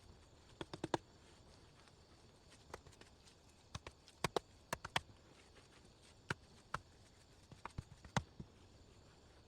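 Irregular sharp knocks and clicks, some single and some in quick clusters of two to four, over a faint steady hiss.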